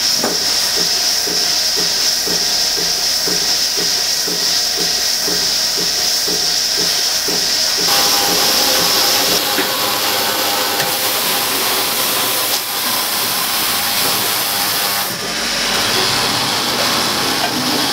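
Lely milking robot running: a loud, steady hiss of air, with a low pulsing at about two to three beats a second for the first eight seconds or so. After that the pulsing stops and the hiss changes character.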